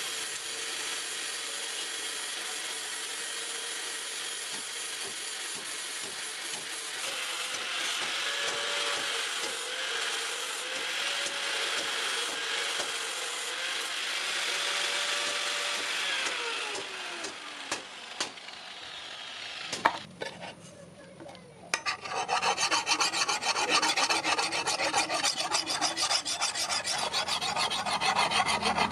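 Abrasive work on a steel knife blade: a steady grinding or sanding noise that winds down with a falling pitch about 17 seconds in, then after a short pause with a few clicks, fast, even rubbing strokes of hand filing or sanding.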